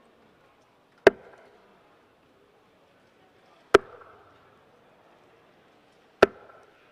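Three steel-tip darts thudding one after another into a Winmau Blade 6 sisal bristle dartboard, about two and a half seconds apart.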